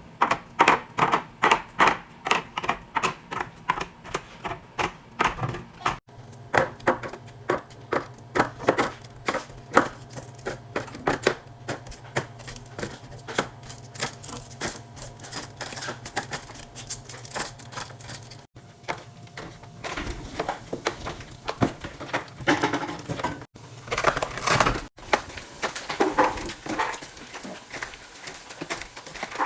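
Quick clicks and knocks of plastic containers and food items being handled and set down while a fridge is stocked, about three a second at first, then more irregular, with longer clattering rustles near the end. A steady low hum runs through the middle stretch.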